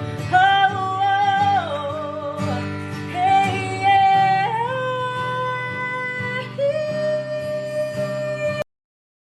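Background music: a voice singing long held, sliding notes over plucked guitar. It cuts off abruptly near the end, followed by silence.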